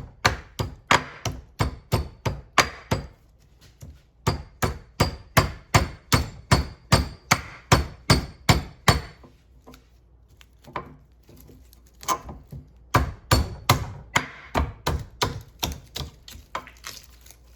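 Repeated hammer blows on metal, about three a second in runs of several seconds with short pauses, each with a faint metallic ring: a microwave oven transformer's welded steel core being beaten open at the weld to free its copper windings.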